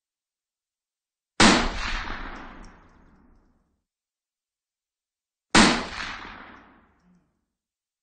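Two rifle shots about four seconds apart, each a sharp crack followed by a long echoing tail that dies away over about two seconds.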